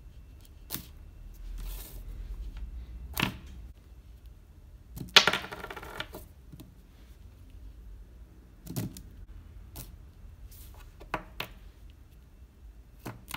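Scattered light clicks and taps of crocodile clips and a small metal disc magnet on a tabletop, with one louder clatter about five seconds in that rattles for about a second.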